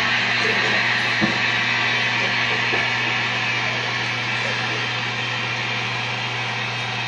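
A vehicle running steadily: a constant low hum under an even hiss, easing off slightly toward the end.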